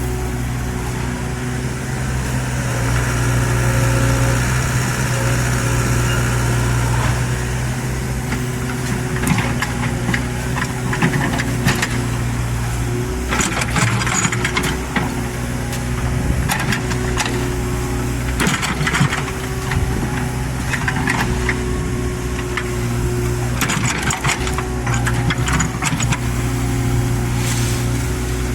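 Excavator's diesel engine running steadily, with repeated metallic clanks and scrapes from about nine seconds in.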